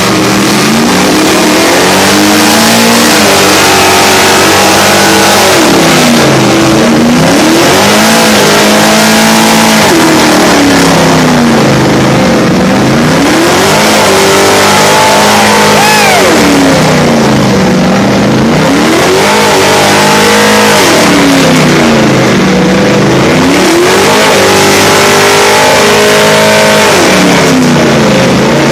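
Pickup truck engines revving hard during a burnout, rising and falling in repeated surges about every three to four seconds, with the hiss of spinning rear tyres throughout.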